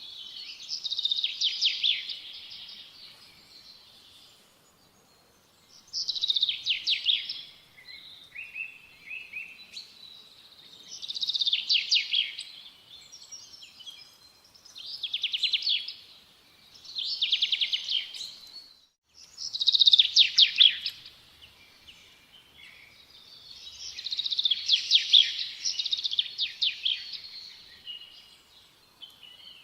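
A songbird singing: short, rapid, high trilled phrases repeated every few seconds.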